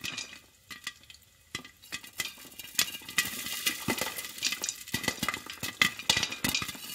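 Popcorn kernels popping in a pot on the stove over a hissing sizzle. There are a few scattered pops at first, then they come thick and fast from about two seconds in.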